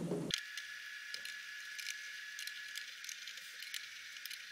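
Faint small clicks and ticks of screws and tiny hex nuts being snugged down on a plastic RV roof vent cover, with a faint steady high tone through the first half.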